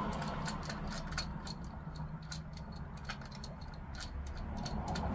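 Small metallic clicks and taps, irregularly spaced, as hand tools and a socket are handled on a HeliCoil thread-insert tool, over a steady low hum.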